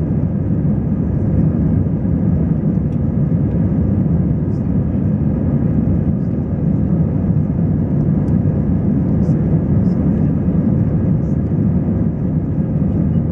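Steady cabin noise inside an Air France Airbus A320 under way: an even, deep rumble of engines and rushing air with a faint steady hum on top.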